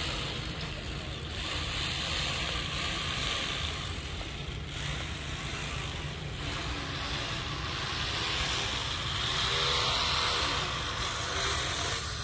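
Steady outdoor road-traffic noise: a continuous rumble and hiss with no distinct events, a faint pitched sound rising out of it near the end.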